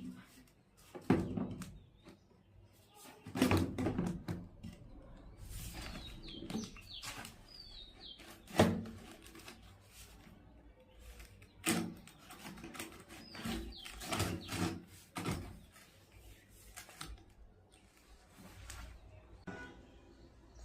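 Irregular knocks and clatters of PVC pipe and tools being handled, the loudest about a second in, twice more in the middle and once more a little later. A few short bird chirps are heard around the middle.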